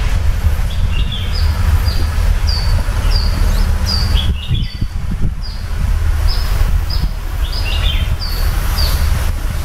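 Birds chirping over and over in short, quick falling calls, about one or two a second, over a steady low rumble.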